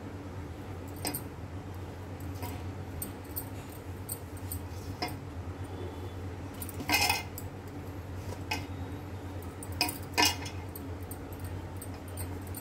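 Glass bangles clinking and jingling on the wrists while hands rub ghee into whole-wheat flour in a steel plate, with now-and-then clinks against the plate. The loudest clinks ring briefly, about seven and again about ten seconds in, over a low steady hum.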